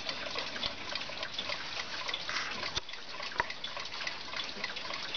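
JAZ mechanical alarm clock ticking in a quick, dense run of small clicks, with a few sharper single clicks, the loudest about three and a half seconds in.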